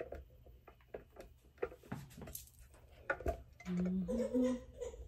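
Scattered light clicks and knocks from handling kitchen utensils and dishes. A short vocal sound with a rising pitch comes about three and a half seconds in.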